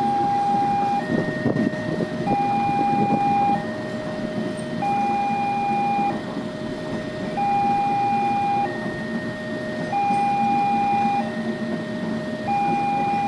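Indonesian railway level-crossing warning alarm sounding, an electronic two-tone signal that switches back and forth between a higher and a lower note, each held a little over a second. It means the crossing gates are closing or closed for an approaching train. Under it is a low rumble of traffic or train noise, heavier for a couple of seconds near the start.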